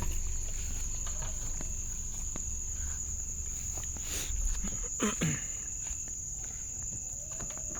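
Crickets trilling steadily in one continuous high-pitched drone.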